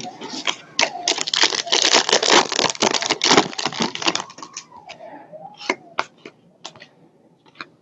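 Trading-card pack wrappers crinkling and tearing open, with cards clicking as they are handled. The dense crackle gives way to scattered sharp clicks about halfway through.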